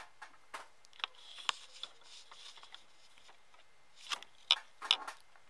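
Irregular light clicks and taps of small plastic parts being handled on a workbench, with a few sharper ticks about four to five seconds in.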